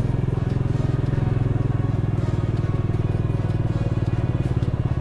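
Bajaj Dominar 400's single-cylinder engine running at low revs as the motorcycle rolls slowly, with a steady, even beat.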